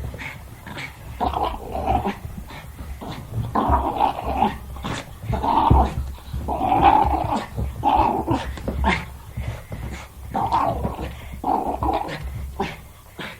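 Jack Russell terrier growling in play: a run of short, irregular growls, each under a second, with brief gaps between them.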